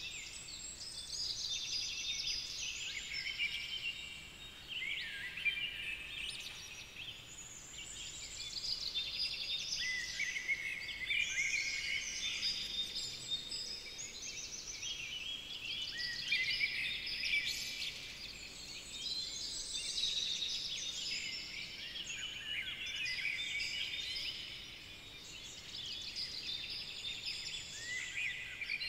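A dense chorus of many songbirds chirping and trilling, all high-pitched, swelling and easing every few seconds.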